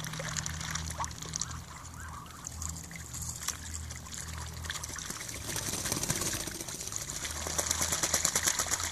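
Muscovy ducks dabbling and drinking in a shallow puddle: many small, irregular splashes and water dribbling off their bills. The splashing gets busier and louder near the end as one duck bathes in the puddle.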